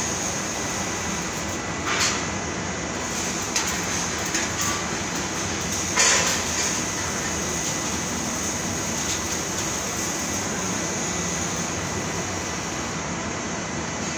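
Steady machinery and ventilation noise of a metal fabrication shop, with a few sharp knocks of parts being handled, the loudest about six seconds in.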